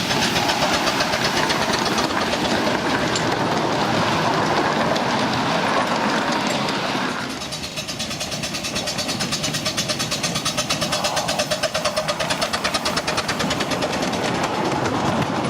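Miniature steam locomotive working: a dense steady hiss for the first half, then a rapid, even beat of exhaust from about halfway through.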